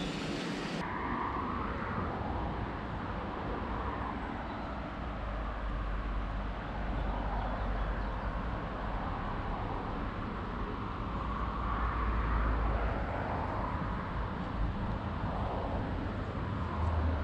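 Steady outdoor background noise with a low rumble, strongest in the middle stretch.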